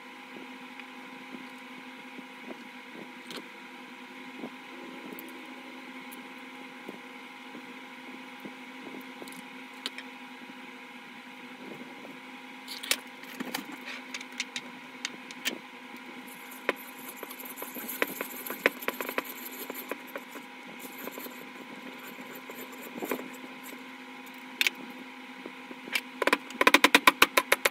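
Small wooden catapult parts being handled and set in a small metal machine vise, with scattered light clicks and knocks over a steady hum. Near the end comes a quick run of sharp hammer taps, several a second, the loudest sound here.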